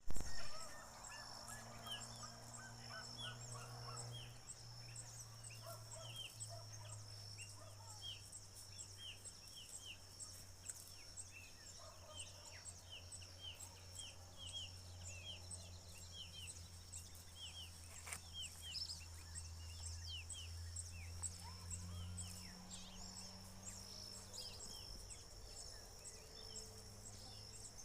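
Rural birds calling: many short, falling chirps repeated a couple of times a second, over a steady high-pitched buzz. A low steady hum lies underneath and stops about 22 seconds in.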